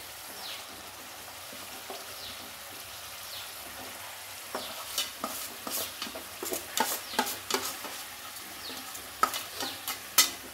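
Marinated chicken leg pieces frying in hot butter and oil in a kadai: a steady sizzle, joined from about halfway by a quick run of sharp crackles and clicks.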